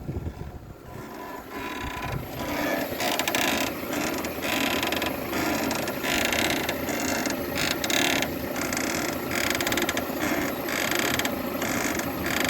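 Peugeot 307 front-suspension stabilizer link creaking over and over, a rough grinding creak, like an old cart; its rubber bushing is dried out and cracked.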